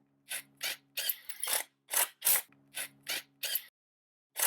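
A run of about a dozen short, irregularly spaced rasping bursts as screws are driven to fasten a 2x2 angle to the wall.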